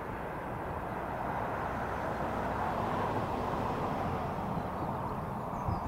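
Distant container freight train rolling past, a steady rumble of wagons on the rails.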